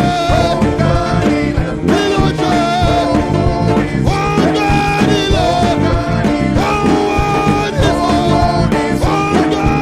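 Upbeat worship music: a band playing a steady beat, with singing over it.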